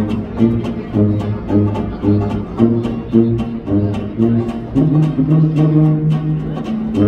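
Traditional New Orleans jazz rhythm section of tuba, banjo and acoustic guitar playing without the horns: the tuba holds bass notes under evenly strummed chords. The sound rings with reverb.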